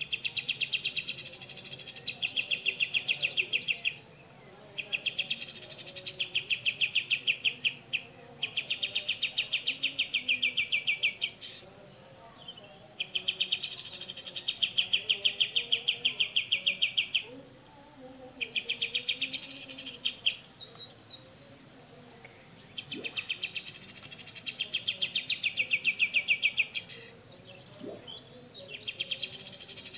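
Cucak jenggot (grey-cheeked bulbul) giving its 'besetan' call: long trains of rapid, evenly spaced harsh ticking notes, each lasting a few seconds, repeated about seven times with short pauses between them.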